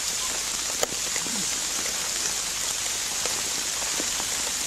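A steady, even hiss of noise, with a faint click just under a second in.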